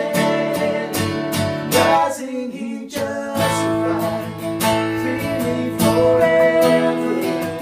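Acoustic guitar strummed in a steady rhythm, with a singing voice over it; the low notes drop out briefly about two seconds in.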